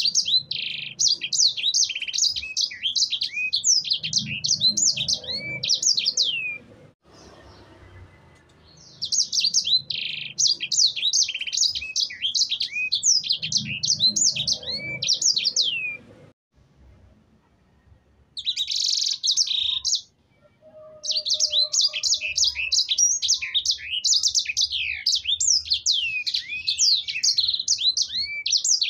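Sanger songbird singing in fast runs of high, sliding chirps and trills, in bursts several seconds long with short pauses between them. In one pause there is a brief buzzy note.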